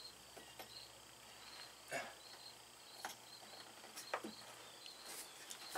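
Crickets chirping steadily, a short high chirp repeating a couple of times a second, with a few light clicks and knocks about 2, 3 and 4 seconds in.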